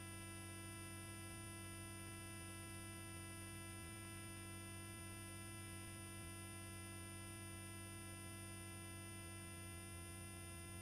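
Faint steady hum with a set of unchanging whining tones on a helicopter's headset intercom line, the voice-activated microphones closed.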